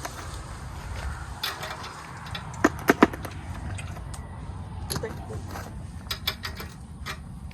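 Irregular clicks and clinks of hand tools and metal hardware being handled, with three sharp knocks close together about three seconds in.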